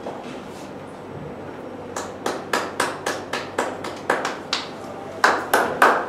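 Hands clapping, starting about two seconds in: distinct, evenly spaced claps about three to four a second, loudest near the end.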